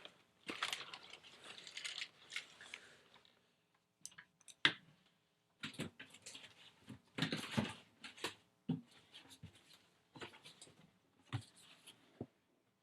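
Rustling and clicking of packaging being handled, in irregular short bursts with brief pauses, as a box is searched for instructions.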